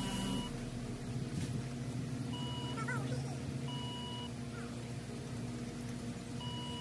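Short electronic beeps from a remote dog training collar (e-collar), four of them at irregular gaps, each about half a second, over a steady low hum.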